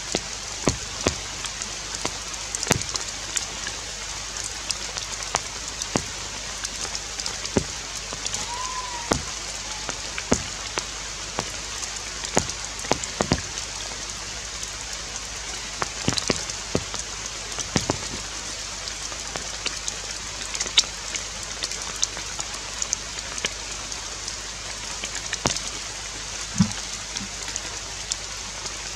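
Steady rain falling on forest leaves, a constant hiss broken by irregular sharp drips. A short high call sounds once about nine seconds in.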